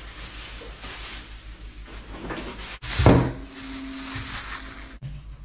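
A door being handled, with one sharp knock about three seconds in followed by a brief tone, over a steady low hum.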